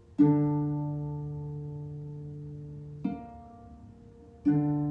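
Harp played slowly: a full, low chord plucked just after the start, a softer chord about three seconds in, and another full chord near the end, each left to ring and fade.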